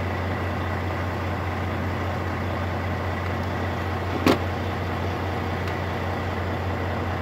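Steady drone of the Volvo VNL truck's diesel engine idling, heard from inside the cab; the multimeter reads 13 volts, a running charge. About four seconds in there is a single sharp click from the wiring and poke tool being handled.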